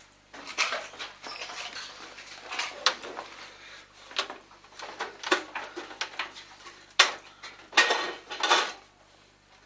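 Sheet-metal computer case being handled and shifted on a workbench: irregular clanks and rattles of thin metal, the loudest knocks about seven and eight seconds in.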